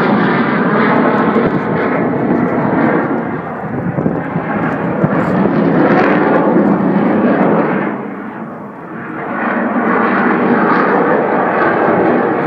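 Loud jet noise from a Eurofighter Typhoon's twin EJ200 turbofans. It dips for a moment about two-thirds of the way in, then rises again.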